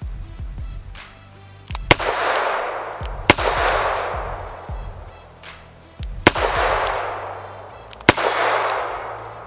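Four shots from a Ruger SP101 .357 Magnum snub-nose revolver, unevenly spaced. Each sharp crack is followed by a long rolling echo that fades over about a second and a half.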